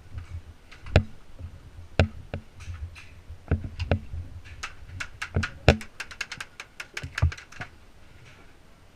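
Irregular dull thuds of footsteps and gear knocks, with a quick run of sharp clicks about six seconds in, lasting some two seconds, typical of a distant airsoft gun firing.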